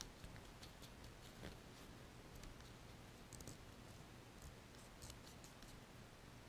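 Near silence, with faint scattered clicks and scratches from a baitcast reel being handled and swabbed clean.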